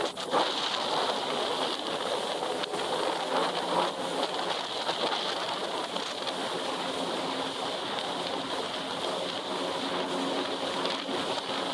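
Yamaha jet ski running steadily at speed, about 35 mph: a constant rush of wind and water spray over the microphone with a faint engine hum underneath.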